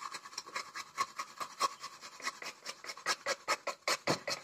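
Coconut pieces grated by hand on a small flat metal grater: quick, even rasping strokes, one after another.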